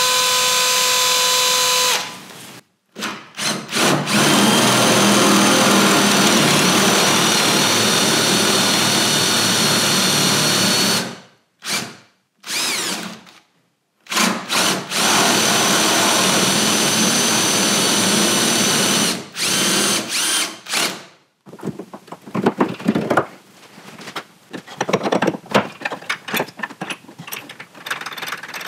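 Cordless drill with a flat spade bit boring the 14 mm clearance holes deeper into a wooden boat stem. It runs at a steady pitch in long pulls of several seconds, with short blips of the trigger between them. In the last several seconds the drill stops, leaving light irregular clicks and taps of handling.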